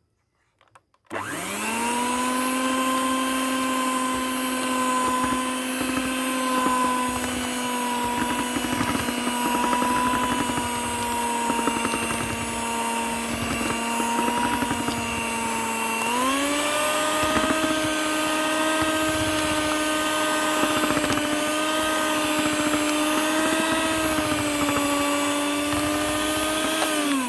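Electric kitchen mixer motor running with a steady whine, switched up to a higher speed partway through, then switched off and winding down near the end.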